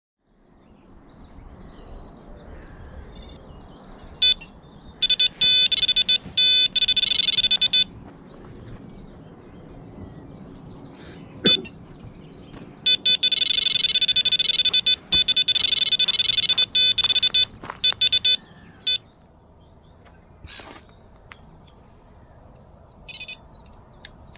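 Electronic carp bite alarm sounding in two long bursts of rapid, continuous high beeping, the sign of a run: a fish is taking line. A single sharp click comes between the two bursts.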